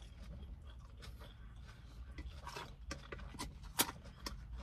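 A person chewing food close to the microphone, with wet mouth clicks and smacks that grow more frequent after about two seconds and one sharper click near the end, over a low steady hum.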